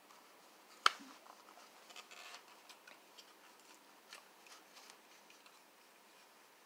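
Plastic parts of a model train floodlight tower being handled and pressed together: one sharp click about a second in, then a scatter of light ticks and a brief rub.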